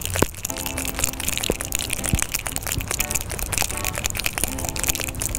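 Ice rattling inside a sealed metal cocktail shaker as it is shaken rapidly, a dense, continuous clatter of ice against metal.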